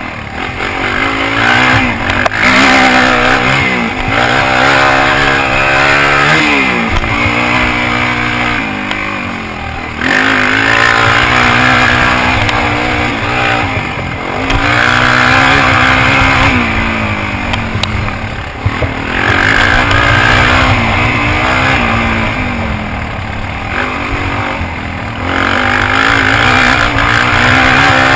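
Suzuki DR-Z400's single-cylinder four-stroke engine revving up and easing off again and again as the dirt bike is ridden hard. Its pitch climbs and drops with each throttle opening and gear change, about every three to five seconds.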